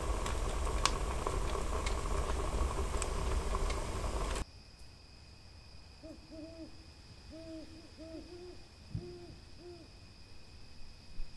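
A steady hiss with scattered crackling clicks that cuts off suddenly about four seconds in. Then, over faint steady high tones in the quiet night, an owl hoots a series of about eight short, low hoots.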